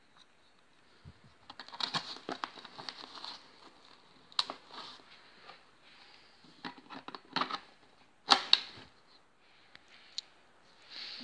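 Handling of an Ares Stoner airsoft LMG as a black magazine adapter is fitted into its magazine well and an M4 magazine is pushed in: scattered plastic and metal scrapes and clicks, with two sharp clacks about eight and a half seconds in.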